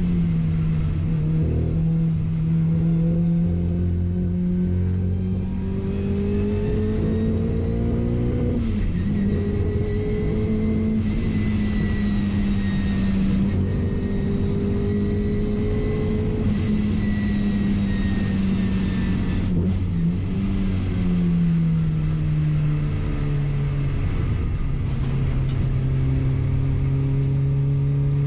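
Car engine running hard under load. Its pitch climbs steadily, drops sharply about eight seconds in, holds nearly level, then falls again around twenty seconds in and stays lower.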